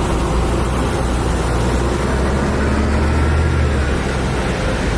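Bus engine running steadily: a deep, even hum under a broad hiss.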